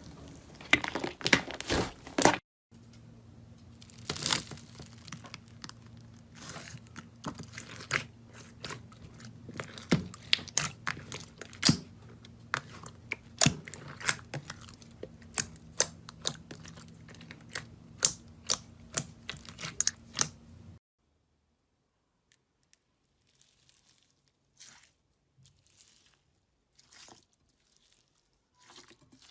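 Slime being squeezed and pressed by hand, making many short crackles and pops, with a steady low hum beneath from about 2.5 s on. The sounds stop suddenly at about 21 s, leaving only a few faint clicks.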